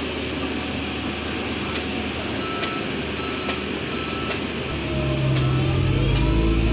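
A heavy road-construction vehicle's diesel engine running, with a reversing beeper giving short high beeps about once every second around the middle. About five seconds in, the engine gets louder and deeper, as if throttling up.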